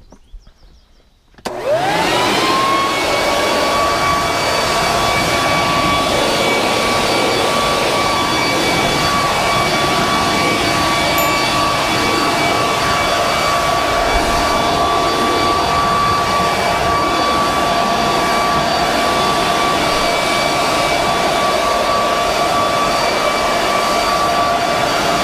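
Leaf blower starting up about a second and a half in, its whine climbing quickly to speed, then running steadily: a constant high whine over a loud rush of air as it blows debris off the deck.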